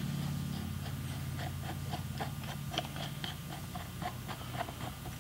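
Small clicks, fairly regular at about three a second, as a brake-line fitting is worked by hand out of an old Lockheed brake master cylinder, over a steady low hum.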